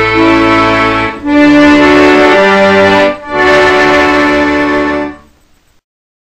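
Instrumental music of sustained held chords in phrases about a second long, fading out a little over five seconds in.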